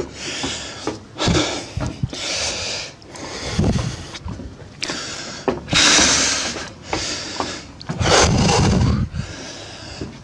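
A man breathing hard and panting, out of breath from climbing many flights of observation-tower stairs: heavy, irregular breaths every second or two, loudest a little past halfway and near the end.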